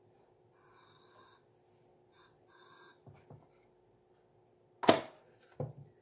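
Hinged plastic lid of a Black+Decker one-cup coffee maker snapped shut with one sharp clack about five seconds in, followed by a lighter knock. Before it, a couple of faint soft hisses over a low steady hum.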